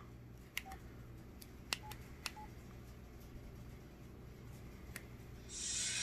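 LG CU400 cell phone keypad: a few sharp button clicks, some with a short faint key beep. Near the end a loud rushing, hissing sound rises from the phone as its power-off animation starts.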